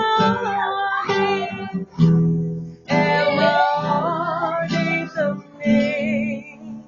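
Acoustic guitar strumming chords under a singer holding long, wavering notes of a gospel hymn.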